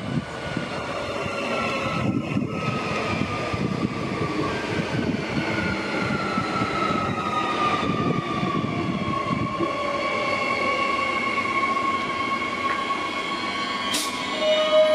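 Queensland Rail electric multiple-unit train running along the track: wheels rumbling on the rails under a motor whine that slowly falls in pitch. A click comes near the end, then a steady tone starts.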